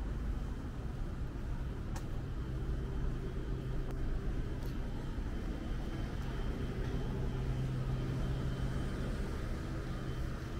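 Steady low rumble of city road traffic with an engine hum, and a couple of faint sharp clicks about two and about five seconds in.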